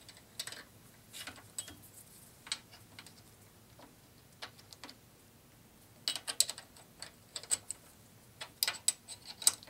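Light metallic clicks and taps of a steel micrometer carriage stop being positioned on a lathe bed and clamped down with a wrench, scattered at first and coming in quicker runs in the second half.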